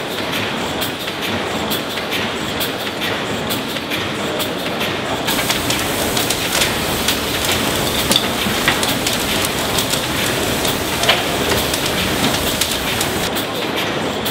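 600 hp William Roberts cross compound mill steam engine running with a steady mechanical clatter. From about five seconds in to near the end, this gives way to a brighter hiss with scattered sharp crackles and clicks by the Cornish boiler and its open fire.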